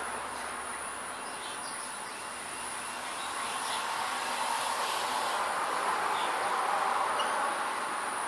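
Steady background noise with a thin high whine that breaks off now and then, and a few faint chirps.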